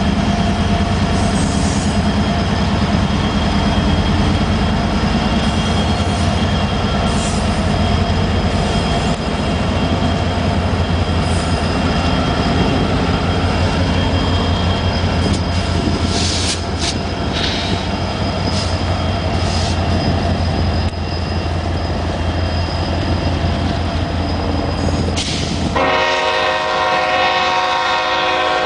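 Union Pacific intermodal train's diesel locomotives passing, their engines running with a steady low drone along with wheel noise. Near the end a train horn sounds a chord of several notes, held on.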